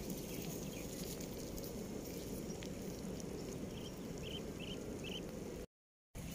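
Steady low outdoor background noise with four short, faint, high chirps about four and a half seconds in; the sound drops out briefly near the end.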